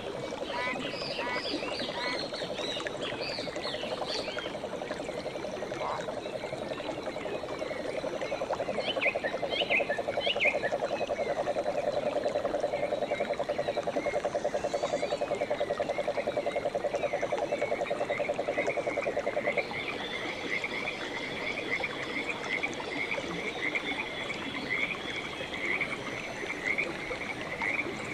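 Frogs calling: a fast, low, pulsing trill that stops abruptly about two-thirds of the way through, over many higher chirping calls that settle into a steady, regular run of chirps.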